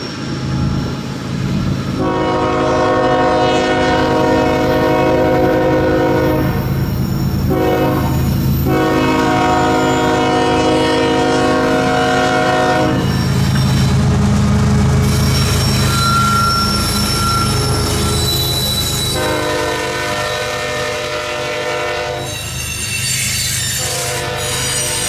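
Freight locomotive horn sounding four long chord blasts over the steady low rumble of the passing train. A high-pitched wheel squeal is heard in the pause between the second and third blasts.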